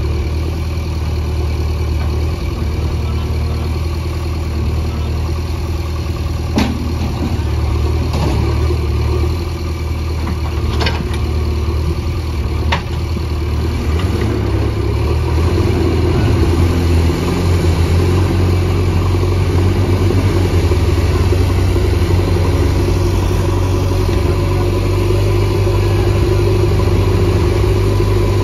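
A JCB backhoe loader's diesel engine runs close by as its bucket pushes on the back of a loaded truck stuck in mud. About halfway through the engine grows louder and its pitch rises and falls under the load. A few sharp knocks come in the first half.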